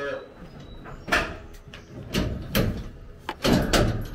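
Metal cattle headgate and chute clanking and rattling as a Highland cow shifts her head in it: four or five hard knocks, the last one longer.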